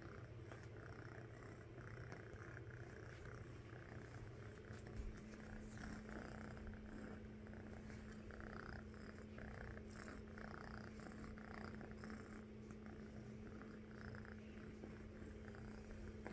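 A domestic kitten purring: a faint, steady, rapid low rumble, with a brief bump about five seconds in.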